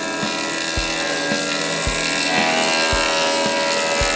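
Wood-Mizer LT15 band sawmill running with its blade cutting through a log, a steady whining rush of motor and saw. It is mixed with background music that has a regular low beat about twice a second.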